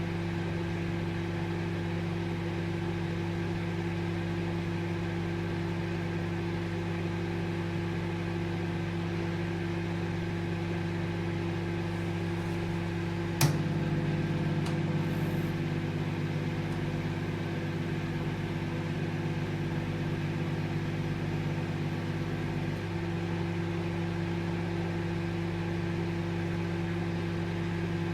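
Microwave oven running with a steady hum. About halfway through a sharp click sounds, and the hum turns louder and fuller for about nine seconds before dropping back to its earlier level.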